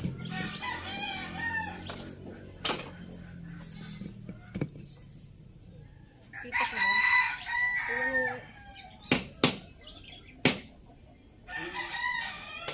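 Roosters crowing three times, long wavering calls at the start, in the middle and near the end, with a few sharp knocks in between.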